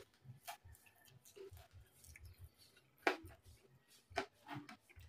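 Close-up chewing and crunching of crispy deep-fried pork knuckle, with a few sharp crunches, the loudest about three seconds in.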